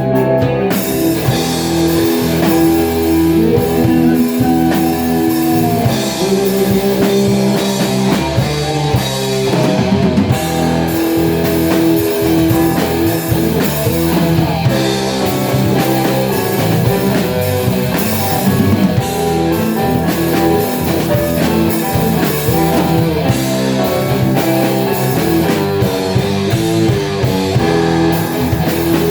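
Rock band playing: guitar with a drum kit, sustained guitar notes over a steady beat.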